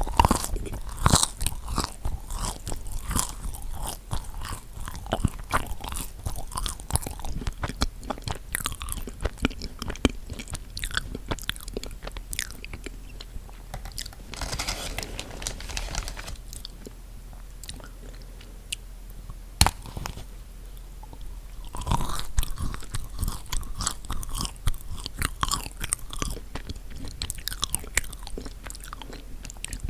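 Close-miked chewing and biting of chocolate-coated marshmallow cookies, with the chocolate shell cracking and a run of wet, clicky mouth sounds. The chewing eases off for a few seconds past the middle, then picks up again.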